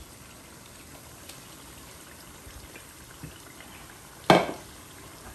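Rabbit meat and herbs simmering in a pot on a gas stove: a faint, steady hiss of cooking, with one sharp knock about four seconds in.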